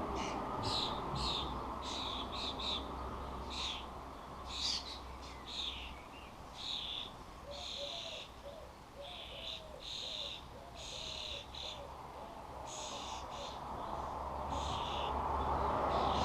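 Garden birds calling: a steady string of short, high chirps, one or two a second, with a fainter, lower wavering call in the middle, over a low steady rumble.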